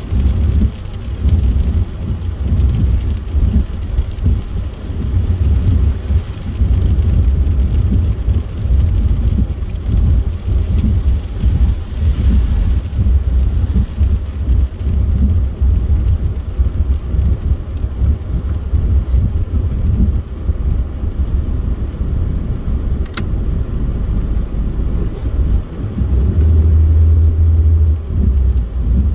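Car travelling at motorway speed in heavy rain: a steady low rumble of road and tyre noise, with one brief sharp click about three quarters of the way through.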